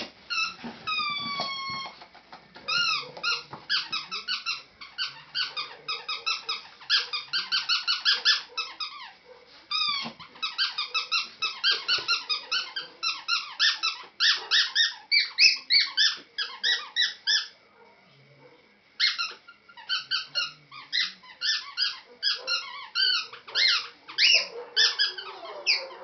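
Chinese crested puppy squealing in rapid runs of short, high, falling squeaks, about four or five a second, with short pauses between the runs. It opens with one longer falling whine.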